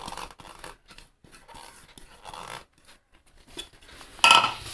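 Grated coconut scraped by hand out of a bowl into a steel mixer-grinder jar: soft, broken rustling and scratching. A single sharp knock comes near the end.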